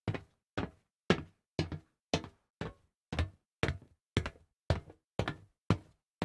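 Footsteps walking on solid metal at an even pace of about two steps a second, each step a sharp knock with a short ring.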